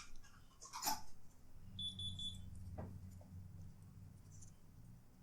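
Laptop parts handled with two sharp clicks, the louder about a second in. A short burst of rapid, high electronic beeps follows near two seconds in, over a low hum.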